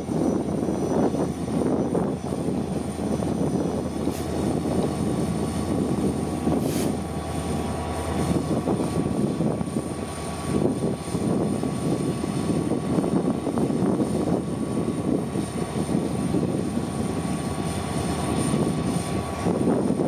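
Union Pacific diesel-electric locomotives running at the head of a coal train, with a steady engine drone as the lead unit creeps slowly past.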